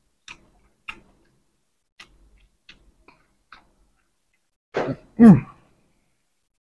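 A person eating: scattered faint crisp clicks of chewing raw leafy greens and larb, then about five seconds in two short hummed vocal sounds from the eater, the loudest thing here.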